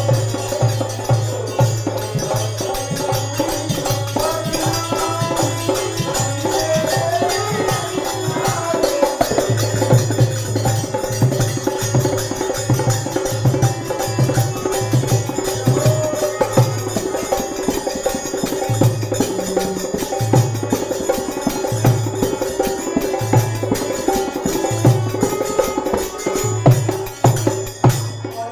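Bhajan music with no singing: a steady beat of drums and jingling hand percussion under a held melody. A wavering melody line is heard in the first third.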